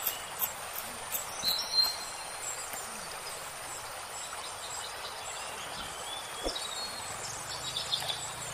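A few knife chops through onion onto a wooden log in the first two seconds, over a steady outdoor rush of a running stream, with a brief bird chirp about a second and a half in.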